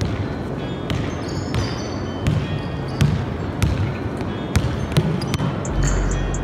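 Basketball dribbled on a gym floor during one-on-one play: sharp bounces at uneven spacing, about one every half second to second, ringing in a large hall, with a few short high sneaker squeaks.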